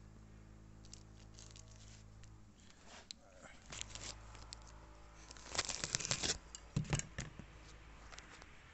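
Crinkling plastic bag holding a new transmission gasket, handled in a few short rustling bursts in the second half, the loudest about two-thirds of the way through. A low steady hum runs under the first two seconds or so.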